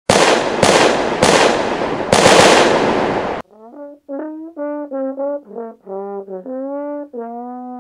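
Four loud, noisy bangs in quick succession, each fading away, then a short melody on a brass-like instrument made of held notes of about half a second each.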